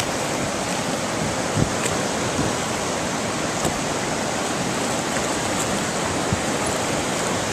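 River rapids: fast water rushing steadily over and between boulders in a narrow rock channel.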